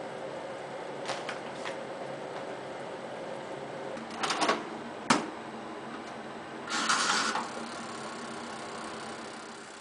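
Jumbox toaster oven being loaded: a metal baking tray clatters as it slides onto the rack about four seconds in, the door shuts with a sharp clank a moment later, then a short rasping burst as the timer dial is turned.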